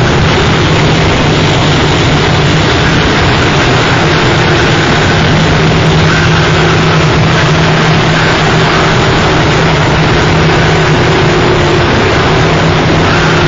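Harsh noise music: a loud, dense, unchanging wall of hiss and rumble with a steady low hum and a fainter higher drone layered in.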